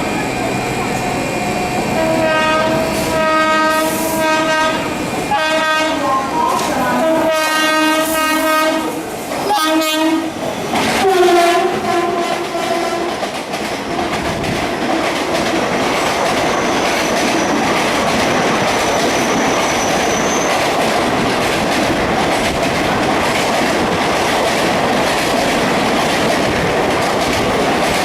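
WCAM-3 electric locomotive's twin-tone horn sounding in several long blasts over the first dozen seconds, sitting lower in pitch in its last blast. It is followed by the steady rush of the express running past at speed.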